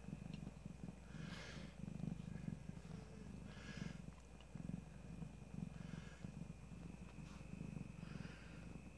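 Mother cat purring steadily while nursing her newborn kittens, with a soft breath sound about every two seconds.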